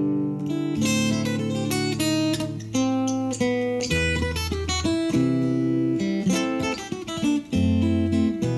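Steel-string acoustic guitar playing an instrumental passage alone: a run of picked notes over a bass line that moves every second or so.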